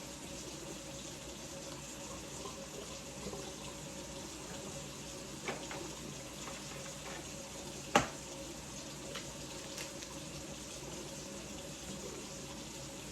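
Steady rush of running water, like a kitchen tap running into a sink, with a sharp clack about eight seconds in and a few lighter clicks around it.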